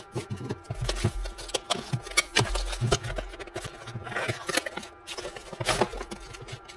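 Cardboard packaging being handled and opened: a box slid apart and its inner cardboard boxes and trays lifted out, with scattered scrapes, taps, rustles and light knocks.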